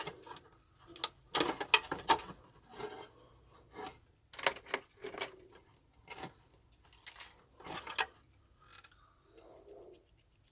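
Irregular clicks and clatters of plastic and metal parts being handled as a vacuum cleaner's cable-reel mechanism is taken apart. Near the end comes a short run of faint, rapid ticks.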